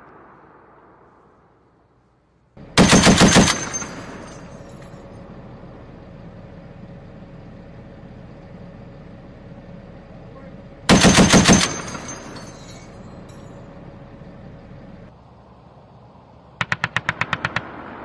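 Machine gun on a Stryker armored vehicle's remote weapon station firing three short bursts of about seven or eight rapid shots each, several seconds apart, each burst followed by a rolling echo that dies away over about a second.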